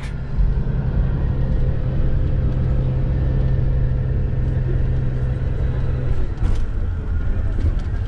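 Cabin noise inside a moving intercity coach bus: the engine's steady low hum with road rumble. The engine tone changes about six seconds in.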